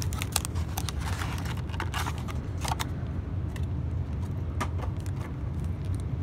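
Cardboard and foil card packaging crinkling and tearing as it is pulled open, a dense run of crackles that thins out after about three seconds. A steady low hum runs underneath.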